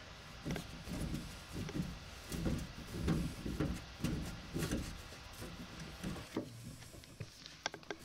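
Gloved hands handling copper pipes and push-fit fittings: a run of muffled knocks and rubbing, then a few sharp clicks near the end.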